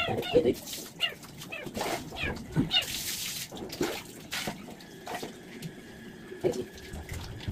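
A cat meowing several times in protest while being bathed, with water splashing as it is poured over it.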